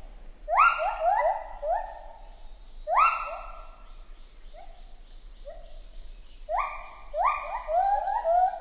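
Lar gibbon song: a run of hooting notes, each sliding up in pitch and then levelling off. Louder groups of notes come about half a second in, at about three seconds and again near the end, with softer notes between.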